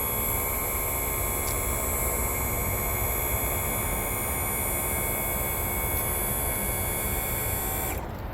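Electric motor of the new power trim and tilt hydraulic pump on a 1989 Mercury 200 hp outboard running steadily with a whine as it lowers the motor, then cutting off suddenly near the end.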